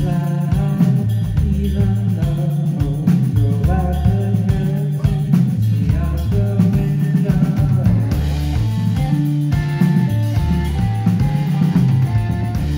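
Rock band playing live: electric guitars, electric bass and drum kit, with a sung vocal over a pulsing bass line.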